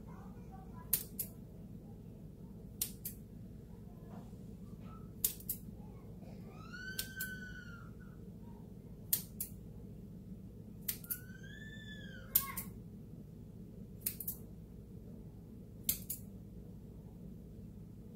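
Kitchen scissors cutting slashes into the tops of risen sourdough dough balls: sharp clicks, mostly in pairs, about every two seconds as the blades snap shut. Twice a high whistle-like tone rises and falls, about seven and eleven seconds in, over a steady low hum.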